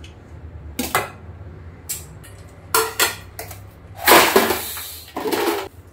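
Kitchen clatter: a few light knocks of dishes and utensils, then a louder clatter about four seconds in as washed garlic is dropped, with another short clatter near the end.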